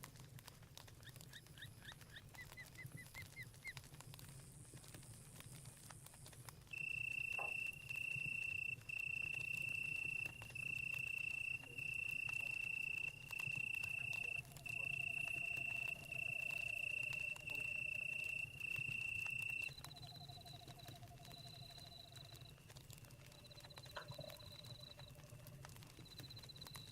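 Night-forest chorus: a loud insect trill at one high pitch, repeating in bursts of about a second for some thirteen seconds in the middle. Under it are fainter high chirping insects, lower frog trills in the second half, and scattered crackling of a campfire.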